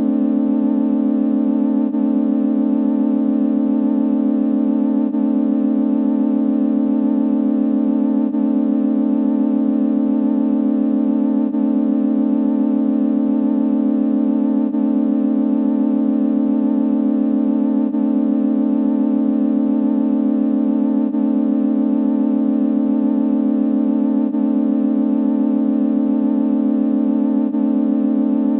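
A steady, loud electronic drone on one unchanging low pitch, organ-like, with a brief dip about every three seconds where the sound loops.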